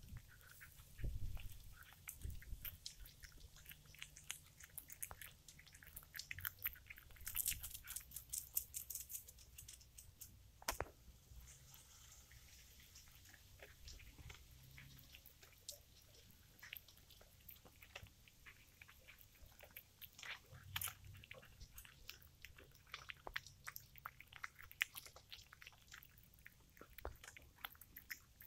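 Domestic cat chewing on a freshly caught mouse, biting into its head: a faint, irregular run of crunching and clicking as teeth work through flesh and bone.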